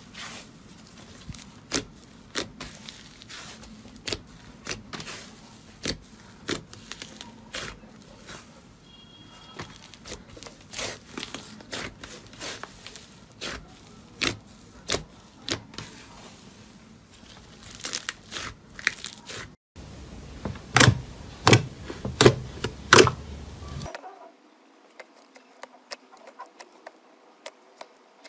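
Slime being squeezed and pressed, giving a run of sharp crackling clicks and pops. The sound changes abruptly twice, as if from one clip to another: the pops grow louder for a few seconds, then turn faint and thin.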